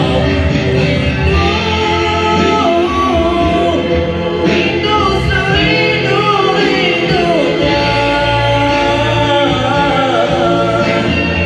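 A man singing a Malay pop ballad into a microphone over backing music, his voice rising and falling in long held phrases.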